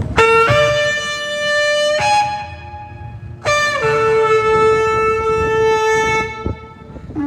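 Shofar blown in two long blasts. The first jumps up in pitch just after it starts and stops about two seconds in. After a weaker note, the second starts high, drops, and is held steady for over two seconds.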